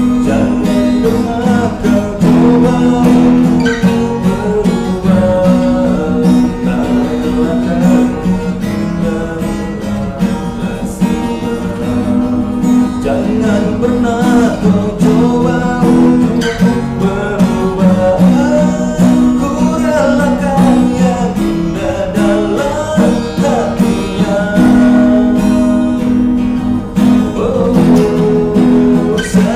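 A man singing a song over a strummed acoustic guitar.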